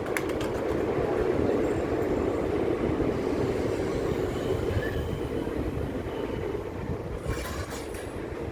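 Train running on the rails: a steady rumble, with a burst of rapid sharp clicks about seven seconds in.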